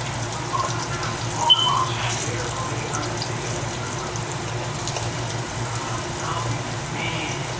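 Kitchen tap running steadily into a sink, with a brief louder clink about a second and a half in.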